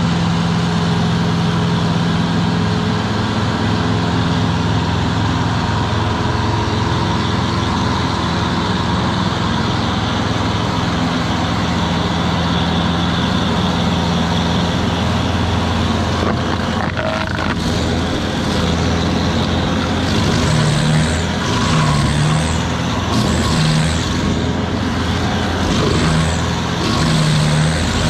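Carlton SP8018 TRX stump grinder running hard as its cutter wheel grinds into an oak stump. In the second half the cutting comes in regular pulses, a little more than one a second, each with a brief hissing rasp over the steady engine.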